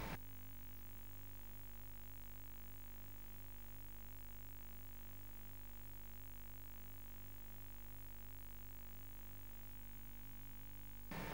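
Steady electrical hum with faint tape hiss and no other sound.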